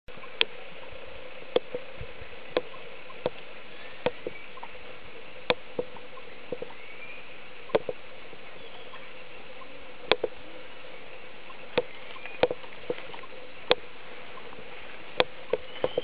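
Golden-fronted woodpecker pecking at tree bark while foraging: sharp taps at uneven spacing, about one a second, some coming in quick pairs.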